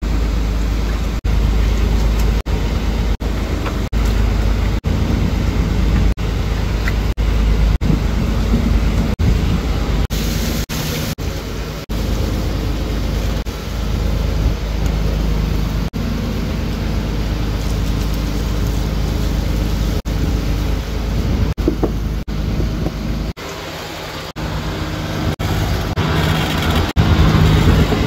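Steady low rumble of the fishing boat's engine, broken into short pieces by frequent brief gaps, with a short hiss of water about ten seconds in.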